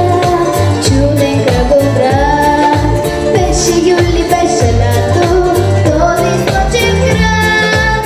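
A girl singing a pop song into a microphone over backing music with a steady beat and bass.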